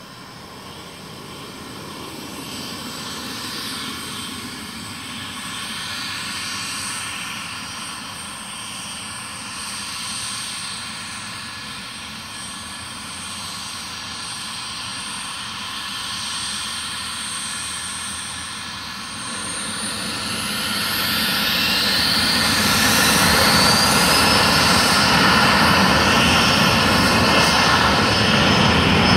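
Small aircraft's engines running and growing gradually louder. About two-thirds of the way through they spool up to takeoff power with a rising whine, then hold loud and steady for the departure roll.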